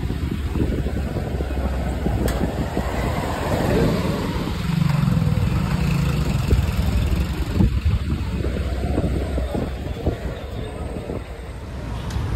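Motor vehicle engine running amid street traffic noise, with a low hum that grows stronger midway through.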